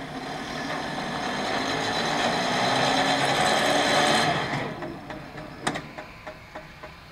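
Electric drive motor of a level-crossing barrier running as the booms lower, a whirr that builds and then stops abruptly about four and a half seconds in. The booms then land with a knock and rattle with a few quick ticks as they settle.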